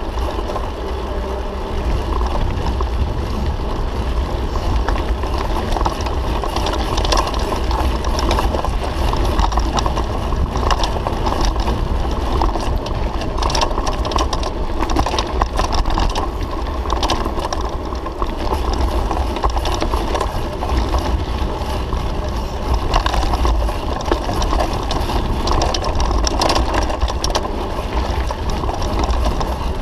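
Mountain bike riding over a rough dirt forest track, picked up by a camera mounted on the bike: a steady low rumble of wind buffeting the microphone, with a running rattle and frequent small knocks from the bike and tyres over the bumpy ground.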